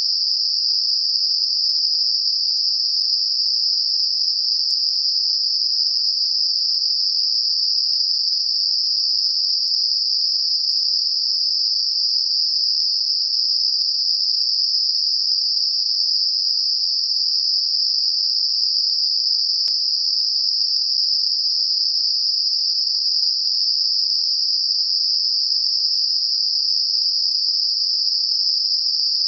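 Steady, high-pitched hiss of computer-generated Gaussian narrow-band noise centred on 5 kHz, a tinnitus masker. It is an even, unchanging band of noise with no rhythm or breaks.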